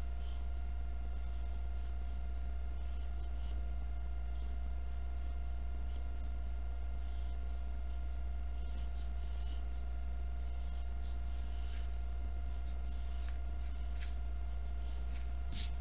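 Pencil scratching on paper in quick, irregular strokes as zigzag lines are drawn, over a steady low hum.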